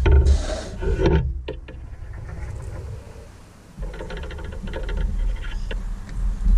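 Handling noises of small parts being worked by hand: rubbing and scraping in the first second or so, then a run of small clicks and rattles a few seconds in, over a steady low rumble.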